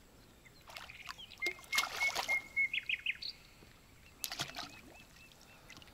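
A small bream splashing at the surface as it is reeled in on a feeder rod, a few short splashes, with birds chirping and trilling.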